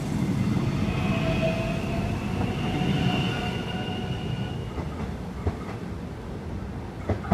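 Melbourne X'Trapolis 100 electric suburban train pulling away from the platform: a rumble of wheels on rail with a whine from its traction motors that fades as it leaves. Two short clicks come near the end.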